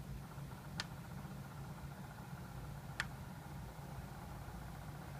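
A steady low hum with two sharp clicks, one about a second in and a louder one about three seconds in.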